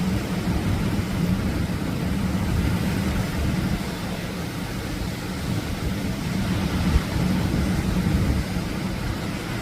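Atlantic surf breaking on the shore: a steady, low rumbling wash of waves.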